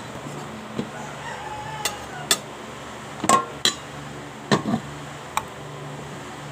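Dishes and cutlery clinking and knocking on a table as a meal is set out: a string of sharp clinks and taps, the loudest a little over three seconds in and again about a second later, over a steady low hum.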